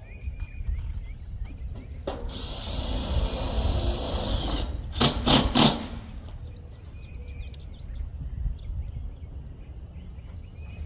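Power driver running steadily for about two and a half seconds, then three short bursts in quick succession, as it fastens screws through the metal siding.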